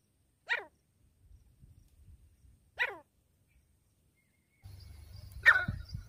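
Grey francolin calling: three short, sharp notes about two seconds apart, each falling quickly in pitch, the last the loudest. A low rumble runs under the last call.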